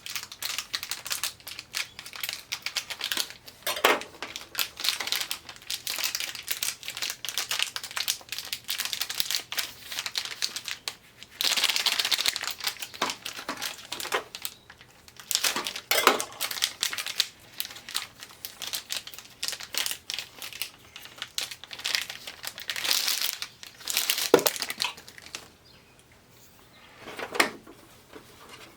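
Adhesive tape and plastic backing crinkling and crackling as LED backlight strips are handled and pressed into place in an LCD TV, with a longer tearing rasp of tape about twelve seconds in.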